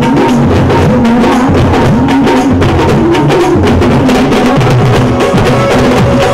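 Band of frame drums and barrel drums beaten in a fast, dense rhythm, with a melody bending in pitch over the drumming.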